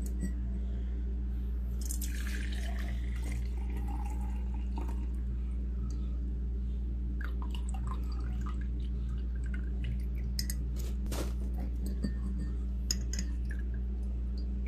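Herbal infusion poured from a jar through a fine mesh strainer into a glass tumbler: a stretch of pouring about two seconds in, then dripping through the mesh and small clinks of glass. A steady low hum runs underneath.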